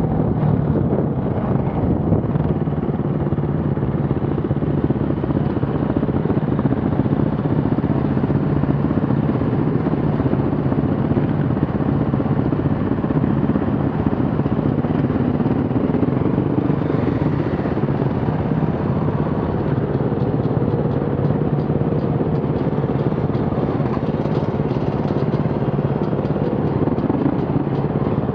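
An off-road vehicle's engine running at a fairly steady speed: a continuous low engine drone with little change in pitch.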